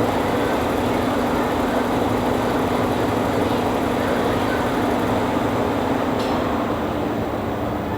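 Volkswagen Golf engine idling steadily with a constant hum; a high hiss fades out about six seconds in.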